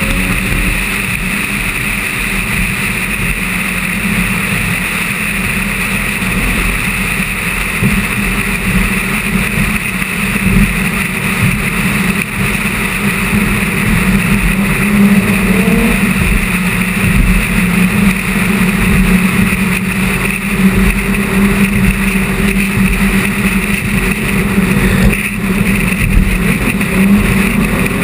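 Car engine droning steadily at cruising speed, with wind and road noise. The engine note rises briefly about halfway through and again near the end.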